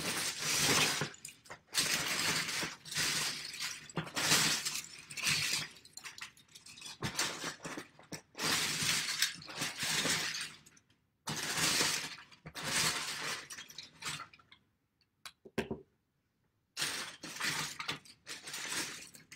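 Hands rummaging through a bin of plastic Lego bricks, the bricks clattering against each other in bursts of a second or two with short pauses between.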